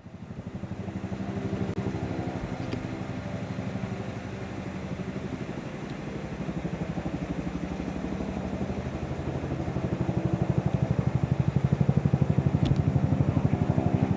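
Helicopter rotor chopping in a fast, even beat over a low engine drone, growing louder from about ten seconds in.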